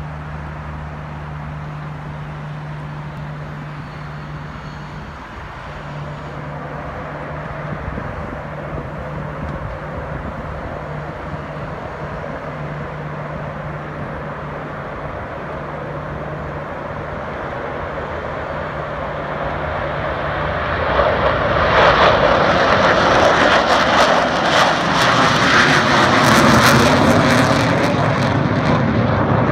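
Two US Air Force Thunderbirds F-16 fighter jets taking off in formation: distant jet engine noise, with a steady low hum beneath it at first, that swells sharply about two-thirds of the way through into a loud, rough rush as the pair passes and climbs away.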